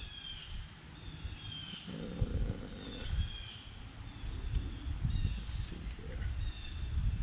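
Insects chirping steadily in a high, evenly pulsing tone, with short chirps above it. Low bumps and rubbing come from the chainsaw file guide being handled and set on the chain, most dense about two seconds in.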